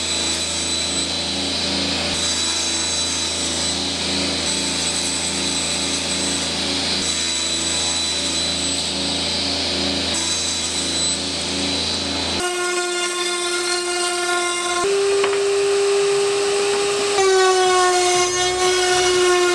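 Table saw running while cutting OSB panels to length, a steady machine noise with a low hum. About two-thirds of the way in it gives way to a strong, steady whine with overtones that steps slightly in pitch twice.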